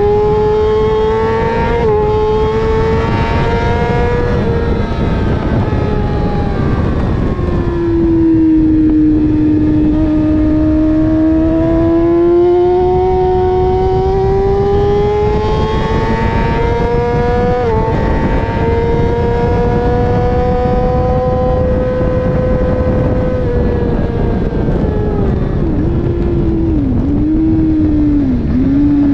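Sport motorcycle engine running hard at track pace, heard from onboard over a heavy rush of wind. Its pitch climbs steadily with brief notches about two seconds and eighteen seconds in, drops back around seven seconds in, and near the end falls in several short quick dips as the rider downshifts for a corner.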